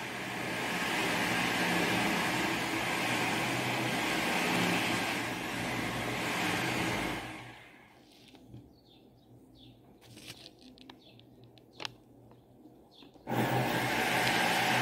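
Steady background noise with a low hum. About seven seconds in it falls away to near silence, leaving faint chirps and a few soft clicks, and it comes back just before the end.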